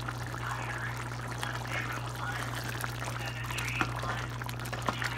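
Potato and pea gravy simmering in a pan, with a constant soft bubbling and popping over a steady low hum. Near the end a spoon stirs it, giving a couple of light clicks against the pan.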